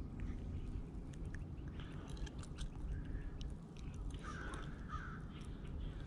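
Low wind rumble on the microphone with scattered light clicks and rustles from handling a fish right at the camera, and a short bird call about four seconds in.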